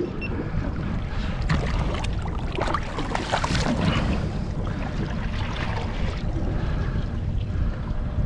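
Water splashing and sloshing at the side of a boat as a hand in the water lets a fish go, with irregular splashes and knocks in the first half, over a steady low rumble.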